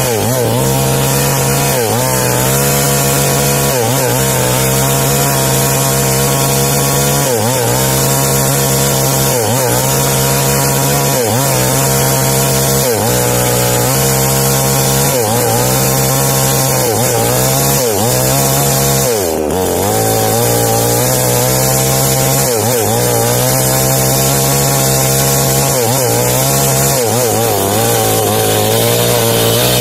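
Small New Paxton chainsaw cutting into the trunk of a jengkol tree during felling. The engine runs at high revs, its pitch sagging under load and recovering about every two seconds as the bar works the cut, with one deeper dip and a sharp knock about two-thirds of the way through.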